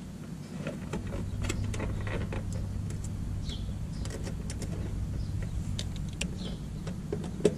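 Small clicks and taps of a screwdriver and wires being worked at an air-conditioning condenser's electrical terminals, scattered irregularly. A steady low rumble runs underneath.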